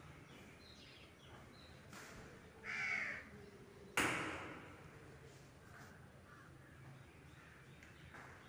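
A crow cawing once about three seconds in, followed about a second later by a sudden sharp bang that is the loudest sound, over faint chirps.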